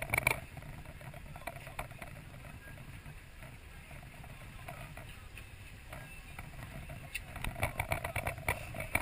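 Steady low rumble of a sport-fishing boat at sea, engine and wind on the microphone, with brief clicks and clatter near the start and again near the end.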